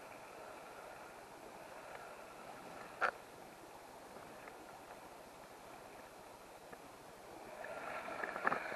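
River water running steadily at a low level. There is one sharp click about three seconds in, and the water grows louder near the end with a few more clicks.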